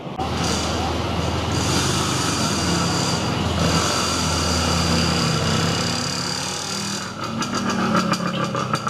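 City street traffic: vehicle engines running close by. From about seven seconds in, a fast, even mechanical rattle joins in.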